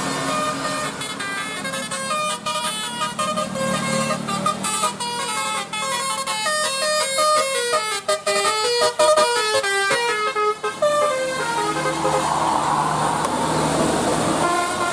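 A tour bus's telolet basuri musical horn, a nine-note set of eighteen air-horn trumpets, playing a quick tune of short stepped notes. The tune stops about eleven seconds in, leaving a rushing noise.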